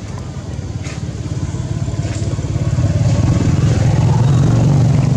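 A motor vehicle's engine running close by, growing louder about three seconds in.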